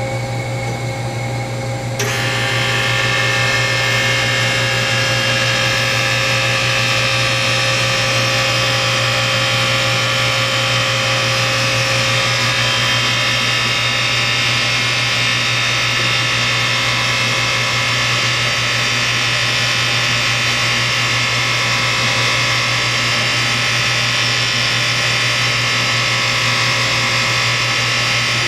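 Live tooling on a Doosan Lynx 220LM CNC lathe running: a steady high-pitched whine that starts about two seconds in, over the machine's constant low hum.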